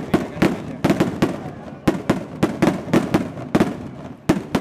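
Cohetes, festival firework rockets, going off in a rapid, irregular barrage: sharp bangs several a second, each followed by a brief echo.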